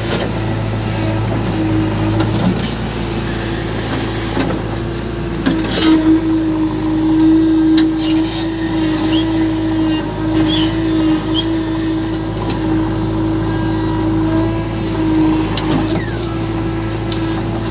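Diesel engines of a backhoe loader and a tractor running steadily, with a few short knocks now and then.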